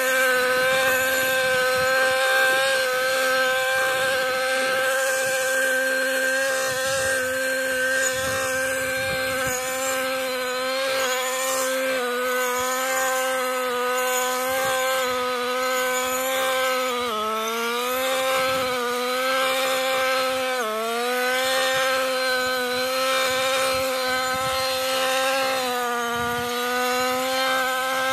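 Husqvarna 128R two-stroke petrol brushcutter running steadily. Its pitch dips and recovers twice about two-thirds of the way through, as the engine takes load cutting through dense growth.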